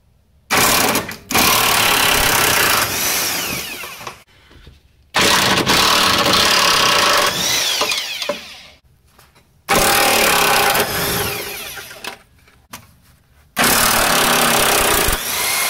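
Cordless impact wrench running in four bursts of a few seconds each, each starting abruptly and tapering off, as it undoes the bolts of the rear axle bracket.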